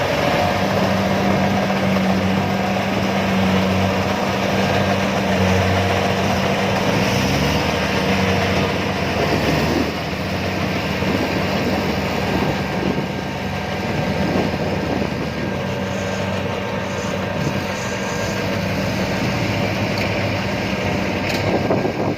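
Diesel engine of a tracked rice-harvesting machine running steadily in mud, with a constant drone. Its low note shifts about seven seconds in.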